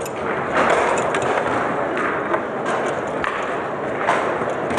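Table-football play on a Lehmacher foosball table: the hard ball and the plastic figures on the steel rods make a few sharp knocks at irregular intervals, over a steady murmur of voices from the crowd around it.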